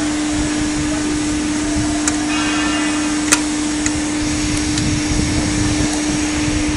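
Hydraulic ironworker's pump motor running steadily with a constant hum, with a few sharp clicks in the middle.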